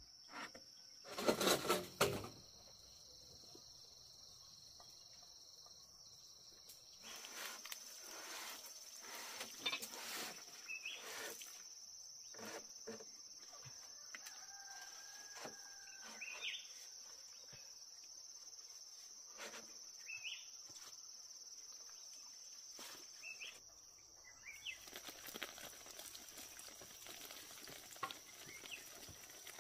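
Faint, steady, high-pitched drone of insects. About a second in, a cluster of loud knocks; after that come scattered lighter knocks and clatter and a few short high chirps.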